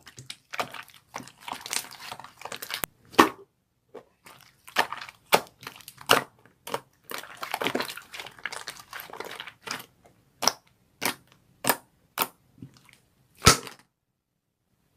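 Plastic packaging being handled: crinkling and rustling in stretches, with many sharp snaps and taps scattered throughout.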